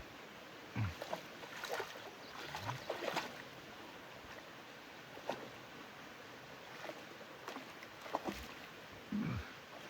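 Water splashing and sloshing in irregular bursts, with a few dull low thumps, as animals move about in a shallow brook.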